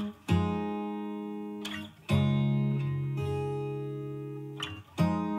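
Background music: acoustic guitar chords strummed about every two seconds, each left ringing and fading before the next.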